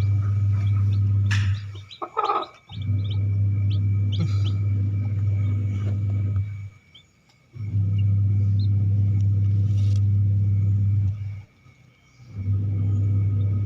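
Steady low electrical hum, typical of an egg incubator's fan or motor, cutting out briefly three times. Short high peeps of hatching chicks sound over it.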